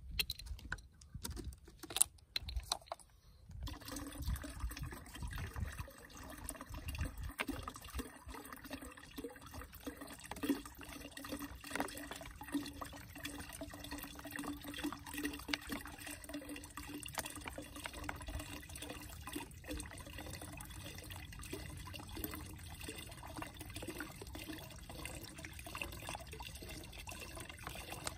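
Liquid pouring from two upturned plastic bottles into a large plastic jug, a steady flow that starts about three and a half seconds in after a few short knocks of bottle handling.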